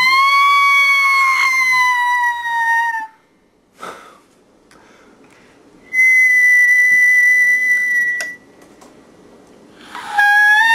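Comic whistle sound effects, like those for something sent flying through the air. A long note rises briefly, then slowly sags in pitch. About six seconds in comes a higher, steady note, and near the end another long note that falls slightly.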